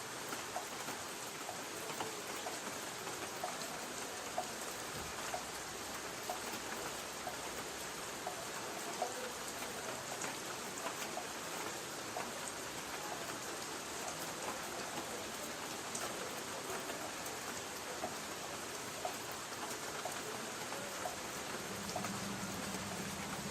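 Light rain on a tin roof: a steady hiss of rain with single drops ticking sharply on the metal, some landing about once a second. A faint low hum comes in near the end.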